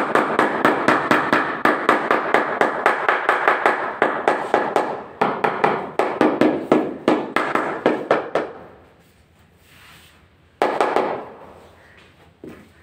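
Rubber mallet tapping a large floor tile rapidly and repeatedly, about four blows a second, setting it down into its mortar bed to level it with the tiles around it. The tapping stops about eight and a half seconds in, with one more short run of blows a couple of seconds later.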